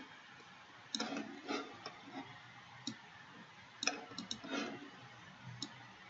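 Computer mouse clicking: about six separate sharp clicks, two of them in quick succession a little past the middle, with faint handling noise around them.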